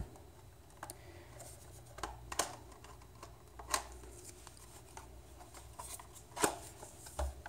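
The plastic case of a HiTec RDX1 battery charger being prised apart by hand: a few sharp clicks and snaps as the case halves separate, the loudest near the end, with light handling rustle between them.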